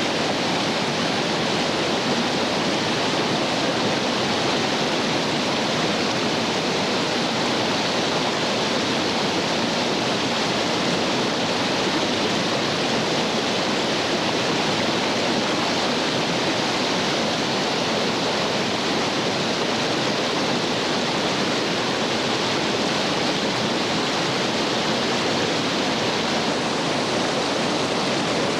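Whitewater rapids of a creek, a steady, even rushing of tumbling water with no single splash standing out.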